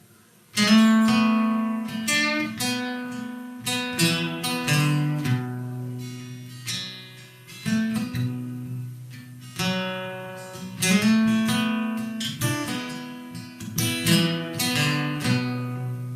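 Acoustic guitar playing an instrumental intro, picked notes and strummed chords ringing out, starting about half a second in after a brief silence.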